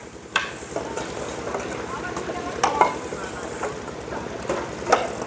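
Crackling, hissing outdoor background noise with scattered short clicks and knocks, and faint distant voices.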